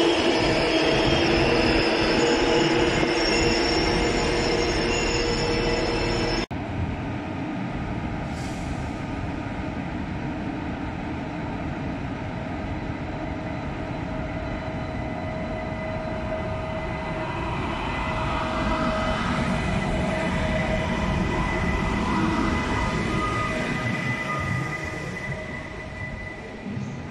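ICE high-speed train running over curved track with its wheels squealing in several steady ringing tones. This cuts off suddenly, giving way to the quieter, steady running hum of an electric train in a station hall. The hum swells as the train rolls past close by, then fades.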